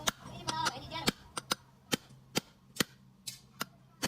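Repeated sharp hammer blows on metal, about two a second and unevenly spaced, some ringing briefly, over a faint steady low hum.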